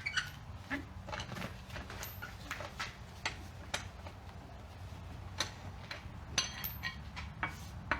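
Scattered light metallic clicks and clinks of tools and brake parts being handled during a brake job, over a low steady hum.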